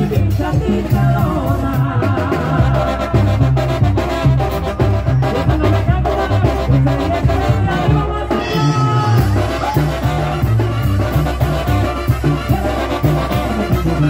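A band playing loud live Latin dance music with a steady, bouncing bass beat.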